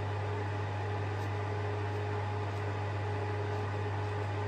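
Bathroom extractor fan running, a steady low hum under an even hiss.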